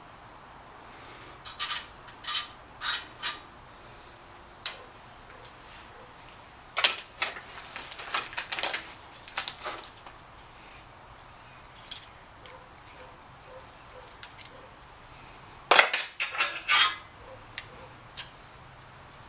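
Metal hand tools, a ratchet, socket and pliers, being picked up, fitted and set down on a metal workbench: scattered clinks and clicks in short clusters, the loudest about three-quarters of the way through.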